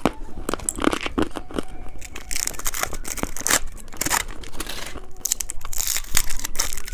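Plastic candy wrappers crinkling and tearing as packaged sweets are handled and opened, a dense run of irregular crackles and rustles.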